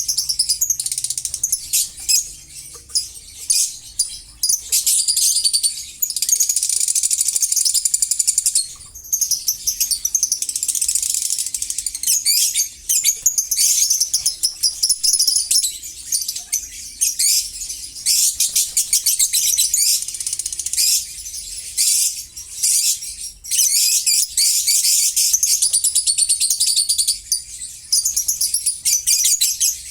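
Many lovebirds chattering and screeching together in a breeding aviary, a dense, high-pitched, continuous twittering with only brief lulls.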